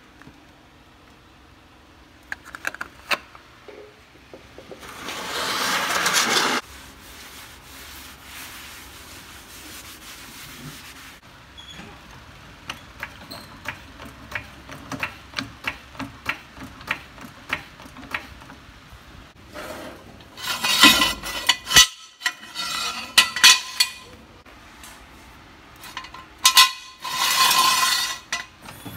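Handling a steel floor jack under a car: a run of sharp metal clicks about two a second, then louder bursts of scraping and rattling near the end.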